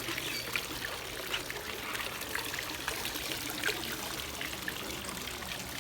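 Water running and trickling steadily, with small splashes scattered through it.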